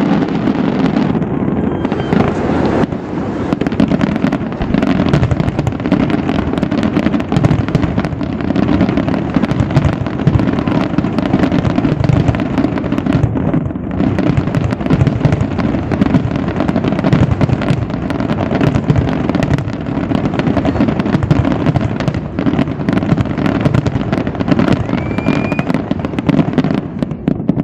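Fireworks display: a dense, continuous barrage of bangs and crackles, one burst running into the next without a pause.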